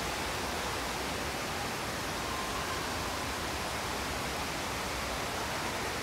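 Steady rush of falling water from the Cloud Forest conservatory's large indoor waterfall, an even, unbroken hiss.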